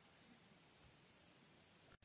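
Near silence: faint background hiss with a couple of tiny high ticks.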